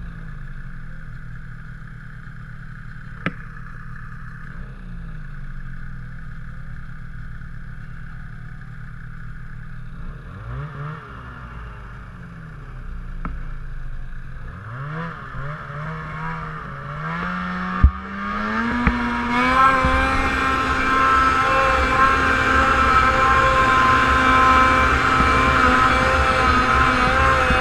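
Snowmobile engines idling, then the throttle blipped several times with revs rising and falling. After a sharp click, the engine revs up and runs loud and steady under load as the sled drives up the snow slope.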